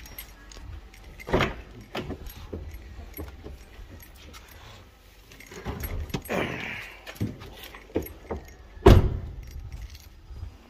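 Skoda Superb door being handled: knocks about a second and a half in, rustling and rattling around six to seven seconds, and one loud thump near nine seconds, as the car door is opened and shut.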